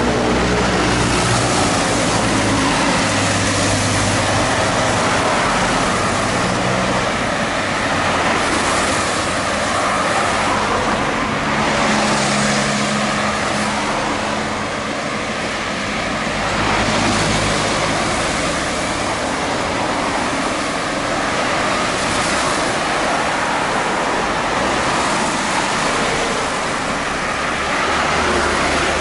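Road traffic: cars passing one after another, each swelling and fading over a steady low engine hum.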